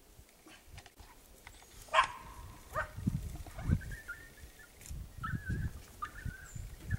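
Chihuahua barking: one sharp bark about two seconds in, then shorter wavering high calls through the rest, with low rumbling underneath.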